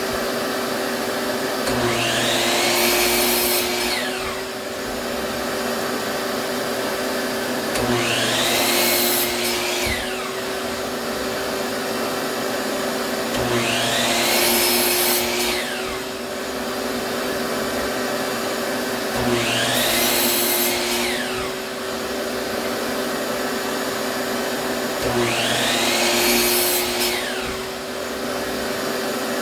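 Electric power saw running steadily and making a series of short cuts through wood, one about every six seconds, five in all; at each cut the motor note drops under load with a rising-then-falling whine, then recovers. The saw is cutting a run of identical small divider pieces.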